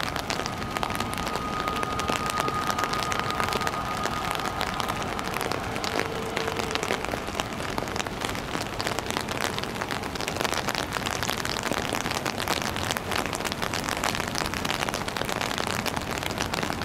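Heavy rain hitting an umbrella held over the microphone, a dense steady crackle of countless drop strikes. A faint steady whine runs under it for the first few seconds.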